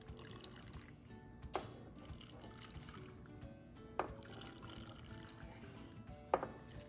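Sugar-vinegar brine poured from a metal ladle into a glass jar packed with Chinese onion bulbs, trickling faintly under background music that has a sharp hit about every two and a half seconds.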